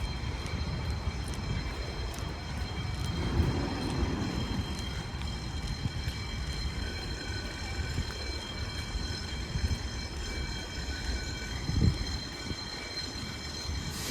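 Large diesel vehicle, a responding fire engine, idling: a steady low rumble with faint steady high-pitched tones above it, and a brief low thump near the end.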